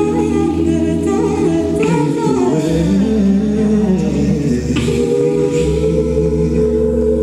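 Mixed-voice a cappella group singing into amplified microphones: voices hold sustained chords over a low bass line while a melody line moves above them.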